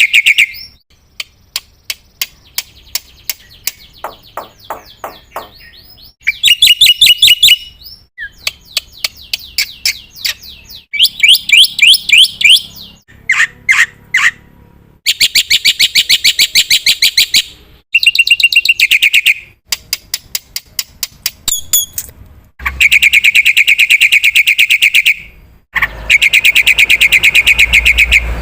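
Black-winged myna (jalak putih) singing in loud bouts of rapid, harsh chattering and rattling notes, with a few short whistles, broken by brief pauses.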